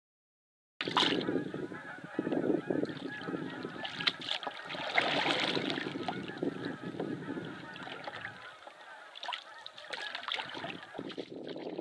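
A flock of geese honking, many calls overlapping, starting about a second in and thinning out near the end.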